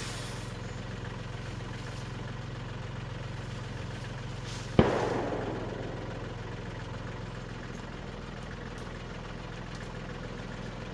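Tractor engine idling steadily, with a single sharp bang about five seconds in that rings off over about a second.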